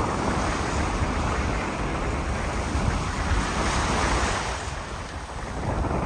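Sea surf washing on the shore, with wind rumbling on the microphone. The wash is strong for the first few seconds, eases a little past halfway, then builds again near the end.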